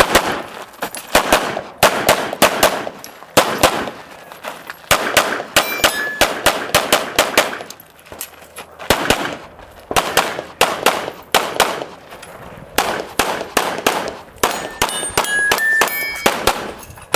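Competition pistol fired rapidly through a stage: fast pairs and short strings of shots, dozens in all, with two brief lulls between strings. A few short ringing tones sound among the shots.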